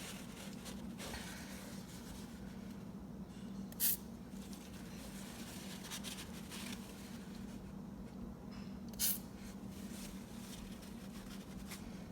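Aerosol spray lubricant hissing onto a squeaky garage door hinge in two short bursts, about five seconds apart.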